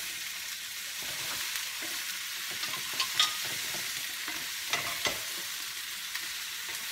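Sliced red capsicum and onion sizzling steadily in a frying pan as a wooden spoon stirs them, with a few sharp knocks of the spoon against the pan about three and five seconds in.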